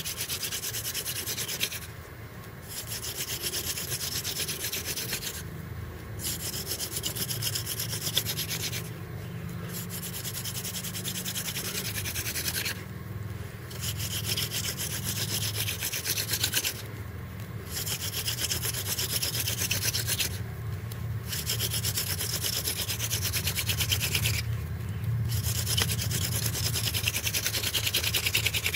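Hand-drill fire-making: a live oak spindle twirled between the palms grinds into a dead orange wood hearth board with a pinch of sand, a steady dry rubbing scrape. It breaks off for a moment about every three to four seconds as the hands go back to the top of the spindle. The hearth is already smoking, a coal forming.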